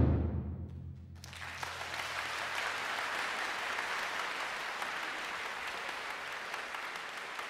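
The ring of a final drum stroke dies away over the first second. Then audience applause starts about a second in and goes on steadily.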